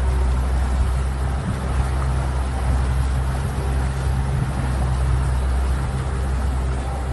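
Outboard motor running steadily at speed, pushing the boat along, a constant low drone with the rush of the wake and wind over it.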